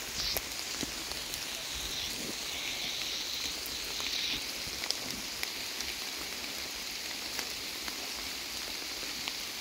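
Heavy rain falling steadily, with scattered sharp ticks of single drops landing close by.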